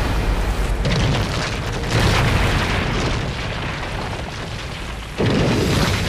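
Heavy rain beating on a car with a deep low rumble from a landslide coming down the hillside; it surges suddenly louder about five seconds in.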